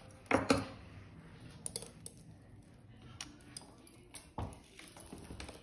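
Metal costume jewelry clinking and rattling as pieces are handled and picked through in a pile: scattered light clicks, the loudest a pair about half a second in and another a little past four seconds.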